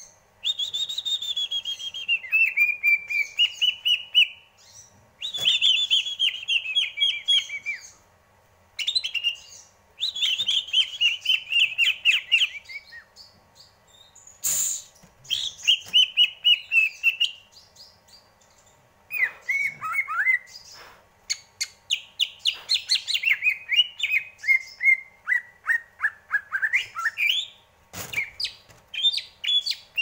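Caged male green leafbird (cucak ijo) singing: repeated phrases of rapid, rippling whistled notes, each a few seconds long with short pauses between them. A couple of sharp clicks come through, about halfway and near the end.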